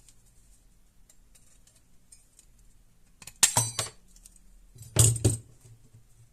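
Faint small clicks, then two loud clattering clinks of small hard parts or tools being handled and set down, the first with a brief metallic ring.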